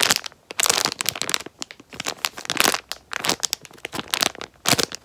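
Squishy packaging crinkling and rustling as it is handled and opened, in irregular bursts of crackles.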